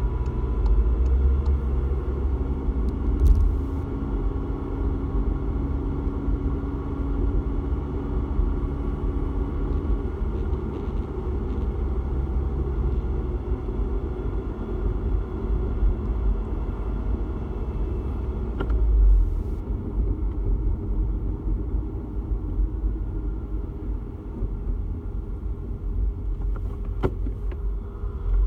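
Inside the cabin of a Volkswagen MK7 Golf GTI while driving: steady road and engine rumble, with a few isolated sharp clicks that fit the rattle being chased in the car.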